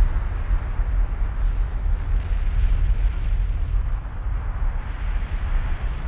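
La Palma's Cumbre Vieja volcano erupting: a continuous deep rumbling roar with a hiss over it, no single blast standing out.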